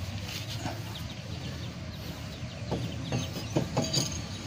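Chickens clucking in the background, with a few light metallic knocks in the second half as a new brake disc is slid onto the wheel hub.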